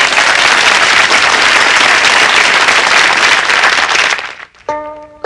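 Audience applauding, dying away about four seconds in. A plucked-string tune starts just before the end.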